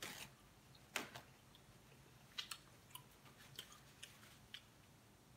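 Quiet eating noises from a seafood boil: about ten scattered soft clicks and mouth smacks, with hands handling food and a paper napkin. The sharpest smack comes about a second in.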